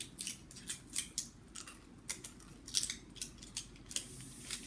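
Crackling plastic and foil with irregular sharp clicks as gum pellets are handled and pressed out of a chewing-gum blister pack.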